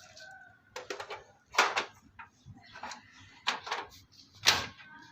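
A handful of sharp clicks and knocks as computer parts are pushed and snapped into place in a desktop case, with a brief faint squeak near the start.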